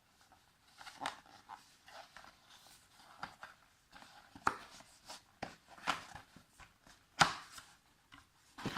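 Packaging being handled as a small accessory box is opened and its contents taken out: irregular rustles, taps and clicks, with one sharper knock near the end.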